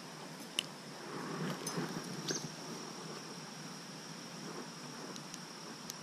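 A dog sniffing at a small fish held out to it, with a few faint snuffles in the first half, over a steady thin high whine.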